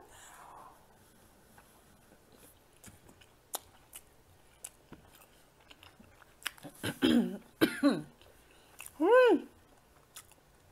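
A person chewing a hot dog in a soft bun, with scattered small wet mouth clicks. About seven seconds in come a few short voiced throat sounds, then a single hum that rises and falls.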